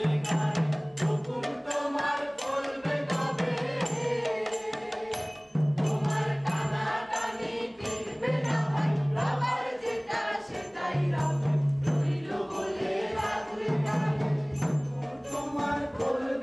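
Chant-like group singing over a steady percussion beat, with a low tone that comes back about every one and a half seconds.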